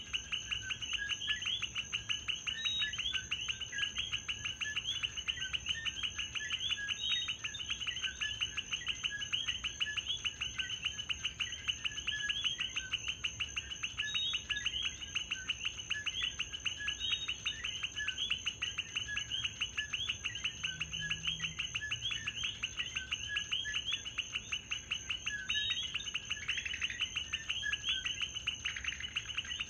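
A dense chorus of coquí frogs: many overlapping two-note chirps repeating without pause, over a steady high-pitched whine.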